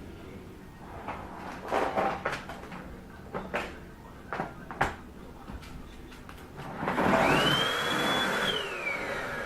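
Vacuum cleaner: a few knocks and bumps, then about seven seconds in its motor starts with a rising whine, runs briefly at a high pitch, and winds down near the end.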